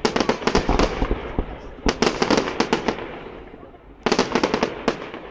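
Fireworks display: three volleys of rapid sharp bangs and cracks, one at the start, one about two seconds in and one about four seconds in, each dying away after it.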